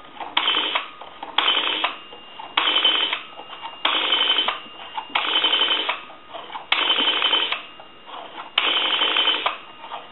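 Payphone rotary dial being dialed through a string of digits: about eight separate bursts of rapid clicking as the dial spins back after each digit, with short gaps between and the later digits running longer.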